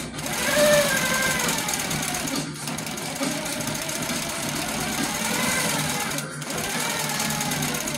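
Baby Lock Coronet longarm quilting machine stitching steadily, free-motion quilting, its motor whine rising and falling in pitch as the quilt is moved under the needle.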